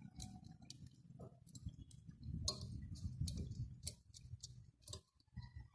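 A string of irregular light clicks and ticks over a low steady hum, cutting off abruptly near the end.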